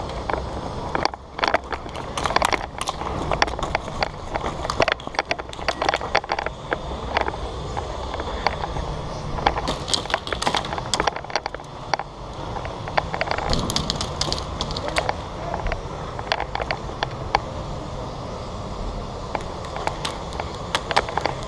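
Clusters of sharp clicks and rattles over steady rustling, the sounds of an airsoft player on the move during close-quarters play.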